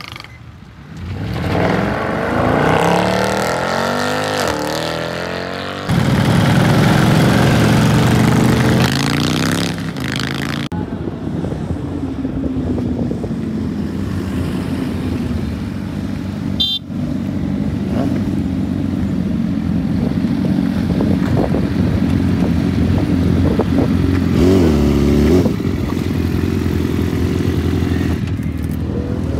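Motorcycle and car engines revving and accelerating past in several cut-together shots, their pitch rising and falling. There is a brief horn toot a little over halfway through.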